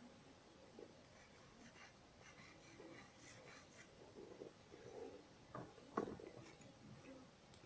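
Quiet, faint scratching and rubbing of a pencil on a paper schematic, with two light taps about five and a half and six seconds in.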